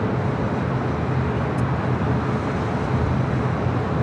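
Airbus A380's four jet engines at takeoff thrust, a steady heavy rumble as the airliner heads down the runway and lifts off.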